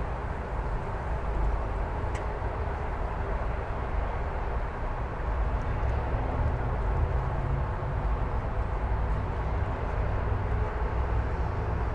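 Steady rumble of freeway traffic heard from a residential street beside it, a low even drone of many vehicles that swells slightly midway.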